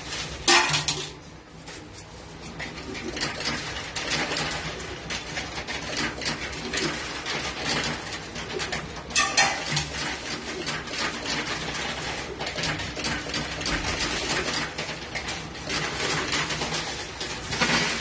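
Coins clinking and rattling in a coin-pusher arcade machine as coins are fed into the slots and drop onto the moving coin shelves, with sharper clacks about half a second in and about nine seconds in.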